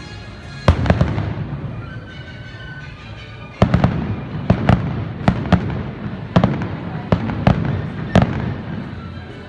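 Fireworks going off: two sharp bangs about a second in, then a rapid run of about a dozen bangs from about three and a half seconds to eight seconds, with a rumbling crackle between them.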